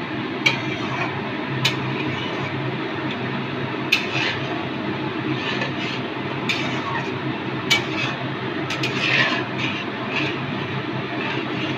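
Metal spatula stirring a carrot-and-milk mixture in a steel kadai, clinking and scraping against the pan about half a dozen times at irregular intervals, over a steady low hum.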